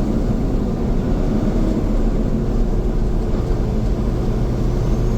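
Loaded semi truck's diesel engine pulling steadily in top gear (eighth high) after a run of upshifts through a split-range manual gearbox, heard from inside the cab as a steady low drone with road noise. The engine note settles slightly lower just after the shift, then holds steady.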